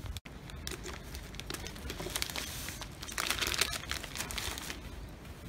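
Plastic bags and a crisp packet crinkling, with crisps being crumbled by hand, coming and going in irregular crackly bursts that are busiest in the middle.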